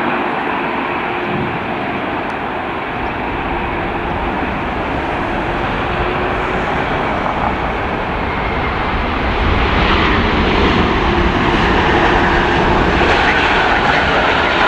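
Engines of a heavy wide-body jet airliner at the airport, a loud steady roar that grows a little louder about ten seconds in.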